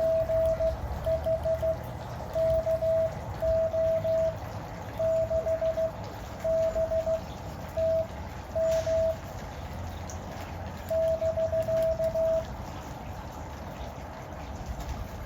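Morse code (CW) from an Elecraft KX2 ham radio transceiver: a single steady tone keyed into dots and dashes, stopping about twelve seconds in. Rain noise runs underneath.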